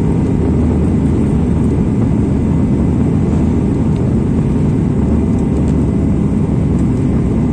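Steady engine and airflow noise inside an airliner cabin during the landing, a constant low rumble.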